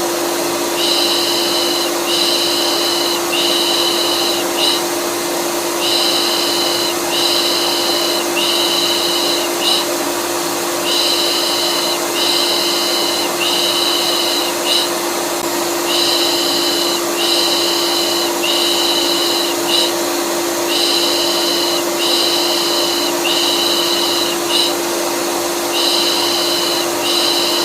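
A vacuum cleaner runs with a steady hum. Over it, a repeating shush, 'pış pış pış', loops as three long hushes and a short one about every five seconds: a soothing sound used to settle colicky babies.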